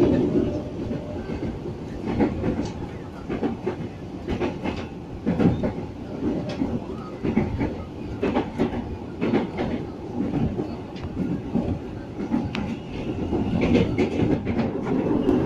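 Interior of a JR 205 series electric commuter train running, with a steady low rumble and repeated clicks of the wheels over rail joints, heard from inside the carriage just after departure.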